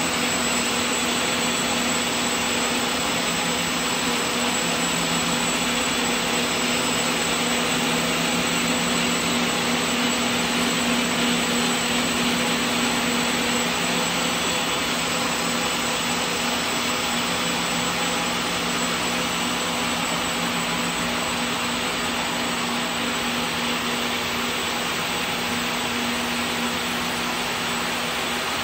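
Crepe two-for-one (TFO) twisting machine running at full speed, its hundreds of spindles spinning: a steady whirring hiss with a constant low hum underneath.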